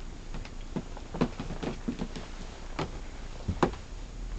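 Irregular knocks and clicks from someone moving through a small boat cabin with a handheld camera: footsteps and handling bumps, the loudest about a second in and again near the end.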